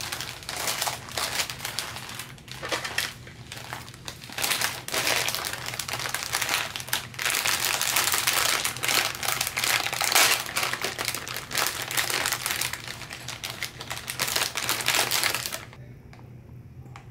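Clear plastic bags of LEGO pieces crinkling as they are handled and one is pulled open. The crinkling stops shortly before the end.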